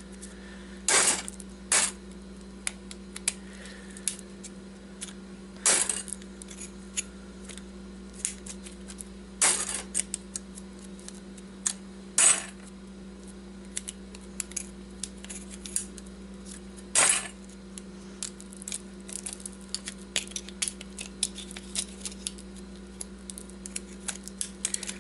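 Thin steel transformer core laminations being worked loose with a knife and pulled out, clinking against each other and onto a pile: a steady run of light metallic clicks with a handful of louder clatters spread through it.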